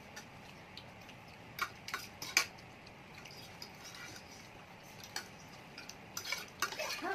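Eating utensils clinking and scraping against bowls of noodles in scattered sharp clicks, the loudest about two and a half seconds in and a quick run of them near the end.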